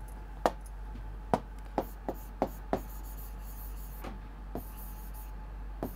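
Writing by hand: a pen or marker tapping and scraping on a writing surface, with about nine short, irregular taps and faint scratching between them. A steady low mains hum runs underneath.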